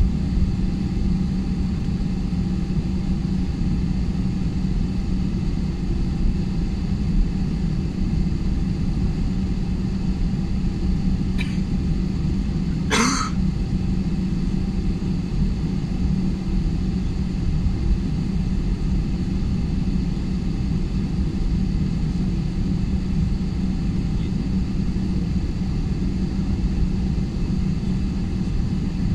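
Steady airliner cabin noise during a night taxi: the jet engines run at low thrust with a steady low hum and rumble. A single brief sharp sound comes about 13 seconds in.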